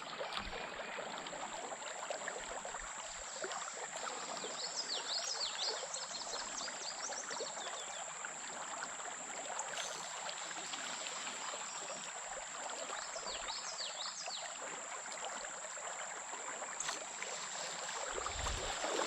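Creek water running steadily, with a thin, steady high-pitched insect drone over it. Two short runs of bird chirps come through, about five seconds in and again about fourteen seconds in.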